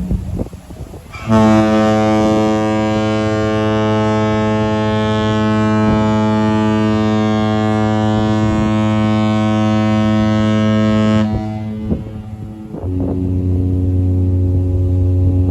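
Cruise ship's horn sounding one long, deep, steady blast of about ten seconds, part of a horn exchange between ships. A different steady deep tone is heard before it and starts again near the end.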